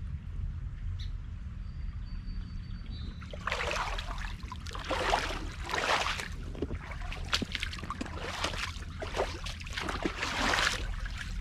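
Boots wading and splashing through shallow creek water, a splash about every second starting a few seconds in, over a steady low rumble.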